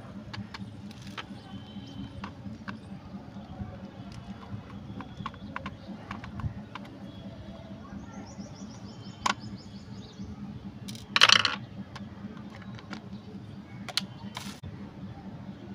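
Small plastic clicks and taps as a screwdriver works the screw on the battery cover of a plastic toy RC car's underside, with one loud brief clatter about eleven seconds in as the cover comes off. A low steady hum runs underneath.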